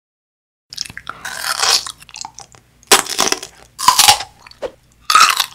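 Crisp crunching bites into a raw celery stalk, with chewing between them; three loud, sharp bites come in the second half.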